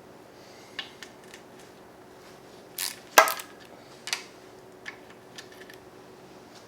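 Tools and metal engine parts clinking and knocking during an engine teardown: a scatter of sharp clicks, with a short scrape and the loudest clank a little after three seconds.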